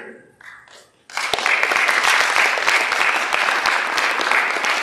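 Audience clapping, starting about a second in and going on steadily as a dense applause.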